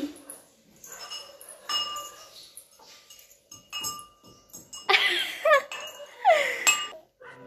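Small metal pot clinking and ringing a few times as a child taps it, with a couple of short voice calls about five and six seconds in.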